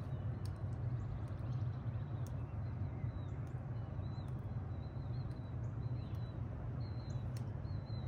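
A 2006 Bard wall-hung heat pump running in cool mode, its compressor and condenser fan giving a steady low hum with an airy rush. Birds chirp briefly and repeatedly over it.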